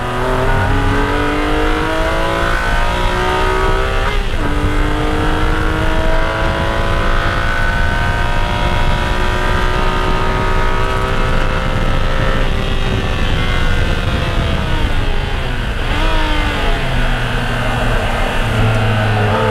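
BMW E46 M3's 3.2-litre S54 inline-six under full throttle, heard from inside the cabin: the revs climb, drop with an upshift about four seconds in, then climb again toward its 7,500 rpm top end. The revs then fall away under braking, with a quick throttle blip on a downshift late on, before the engine settles into a lower steady pull.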